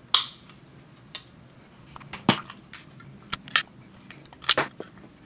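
A metal pick prying at the seam of a small plastic USB charger adapter case, with about six sharp, irregularly spaced plastic clicks and snaps as the snap-fit case is worked apart.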